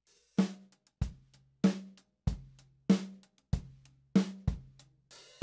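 Multitrack drum-kit recording playing back in a loop as a mix is balanced: a steady beat of drum hits about every 0.6 seconds, each with a short low ring, and a cymbal wash near the end.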